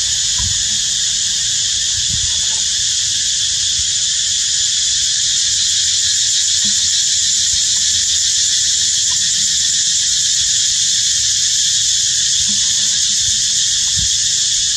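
Steady high-pitched insect chorus droning without a break, with a faint low rumble underneath.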